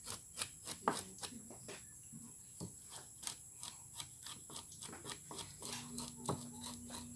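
A kitchen knife scraping the scales off a freshly caught grunter fish on a wet wooden board. It makes a quick, uneven run of short rasping scrapes, several a second.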